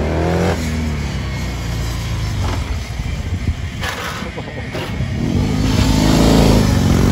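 BMW motorcycle engine revving and easing off at low speed: the pitch climbs until about half a second in, drops back, then climbs again and grows loudest as the bike passes close near the end.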